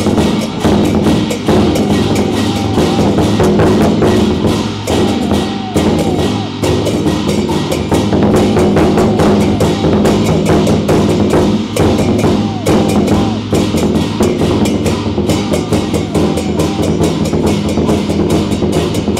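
A Chinese folk gong-and-drum band playing loudly: a big drum and cymbals in fast, dense strokes, with a melody whose notes bend up and down over the top.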